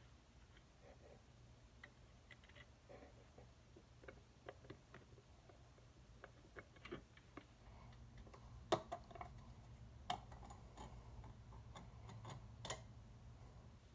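Faint, scattered metallic clicks and taps of a small gas engine's valve cover being worked loose by hand and lifted off the cylinder head, with a few sharper clacks in the second half.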